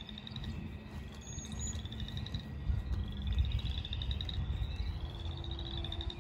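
Small animals calling: a short, slightly rising high trill repeated about once a second, over a low rumble.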